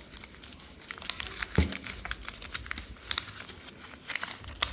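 Plastic packaging crinkling and tearing as a new smartphone is unwrapped, a run of short crackles, with a single thump about one and a half seconds in.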